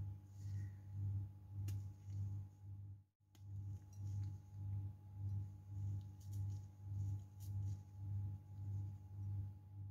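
Background music: a low humming drone that swells and fades about twice a second, cutting out briefly about three seconds in.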